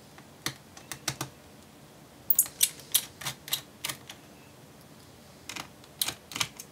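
Small Phillips screwdriver undoing the two screws that hold down the cooling fan of a Dell Inspiron 15 5502 laptop: irregular sharp light clicks in three short clusters.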